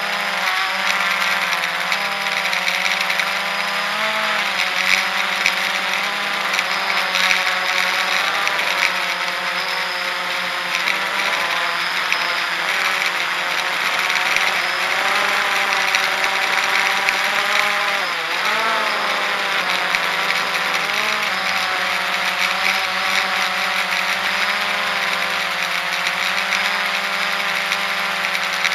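Blade 350 QX3 quadcopter's four brushless motors and propellers whining steadily, heard from a camera on board, with a hiss over them. Several tones waver up and down as the motors change speed, with a brief dip and rise in pitch a little past the middle.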